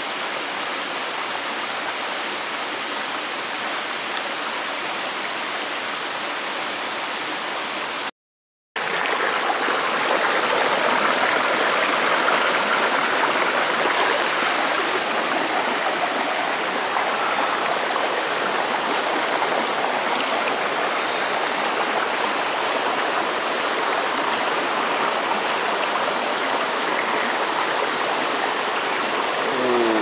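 Shallow rocky stream rushing steadily over boulders and a small cascade. The sound cuts out for about half a second around eight seconds in, then resumes slightly louder, with faint short high chirps at intervals over the water.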